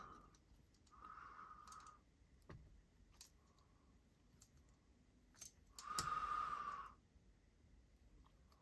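Faint, scattered small clicks from the parts of a folding knife and the small tools being handled during reassembly. There are two longer breathy hisses, one about a second in and a louder one about six seconds in.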